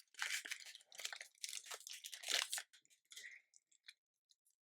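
Plastic wrapper of a Topps baseball card pack crinkling and tearing as it is ripped open, for about two and a half seconds. A few faint clicks and rustles follow.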